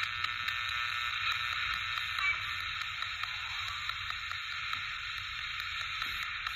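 P-SB7 spirit box sweeping rapidly through radio stations: a steady hiss of static through its small speaker, with faint snatches of broadcast tones and light clicks as it jumps between stations.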